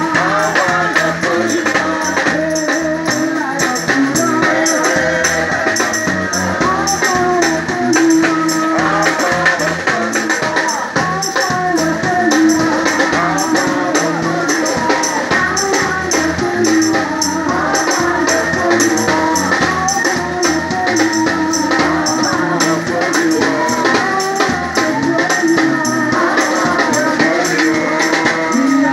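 Upbeat music with a man singing into a microphone, played through truck-mounted loudspeakers over a fast, steady percussion beat.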